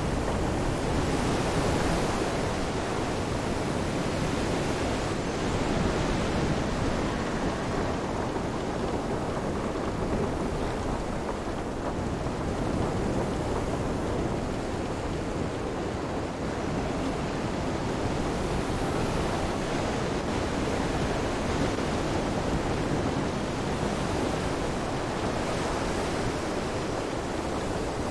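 Storm ambience: a steady rush of rain and wind with surf washing in, swelling and easing every several seconds.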